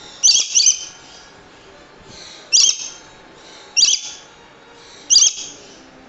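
Swainson's lorikeet (rainbow lorikeet) giving loud, high-pitched screeching calls: a quick pair near the start, then three single calls roughly every second and a half.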